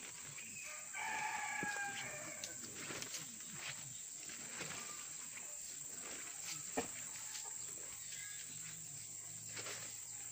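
A rooster crows once, about a second in, one long call of a second and a half, over a steady high-pitched hum. Faint rustles and clicks of walking follow, with one sharp click near seven seconds.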